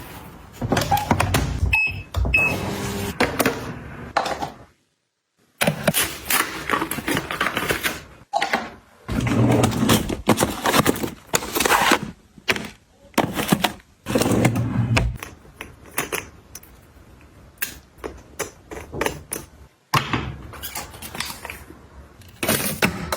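Packaged snacks and plastic containers being handled and set in place: a quick run of clicks, taps and rustling packaging, broken by a brief silence about five seconds in.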